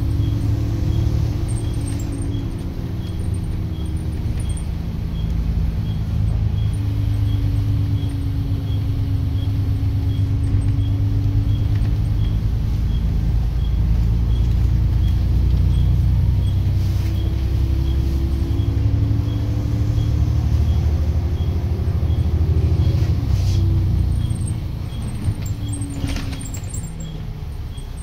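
Double-decker bus engine and drivetrain running while the bus is under way, heard from on board: a steady low drone with a whine that drifts up and down in pitch. A faint regular tick about twice a second runs beneath it, and the sound quietens a little near the end.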